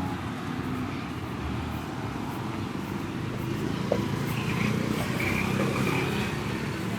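Steady rumble of road traffic, with a single sharp click about four seconds in.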